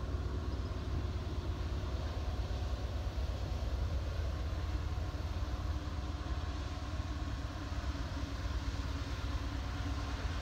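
Low, steady rumble of distant diesel freight locomotives working toward the camera, with no other distinct events.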